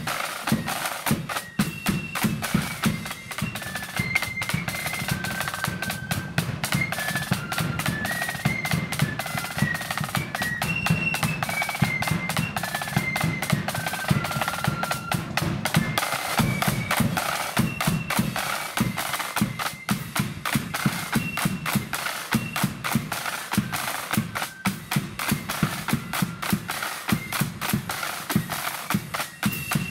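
Marching flute band playing a tune: a high flute melody over rapid snare drum rolls and strokes, with a steady bass drum beat.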